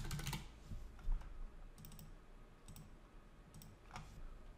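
A handful of separate computer keyboard and mouse clicks, spaced irregularly, as new dimension values are entered.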